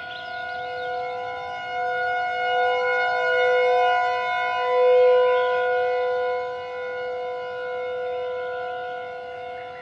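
Synthesized siren-like alert drone: several steady tones held together as one chord, swelling to its loudest about five seconds in and then easing off, with a wavering high warble over it near the start and again near the end.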